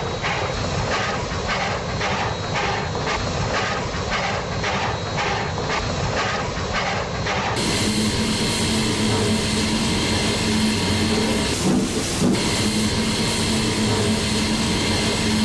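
A recording of a real steam train: a regular beat of about two strokes a second, then, about halfway through, an abrupt change to a steady hiss of steam over a low drone.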